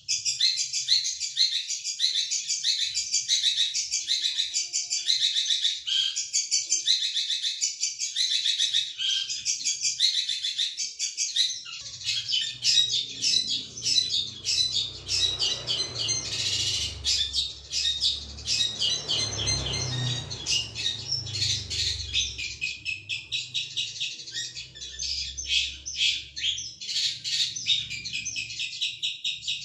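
Songbird master recording for bird training: a small bird's rapid, repeated high chirps and trills. A low rumble comes in under the song about twelve seconds in and fades about halfway through the second half.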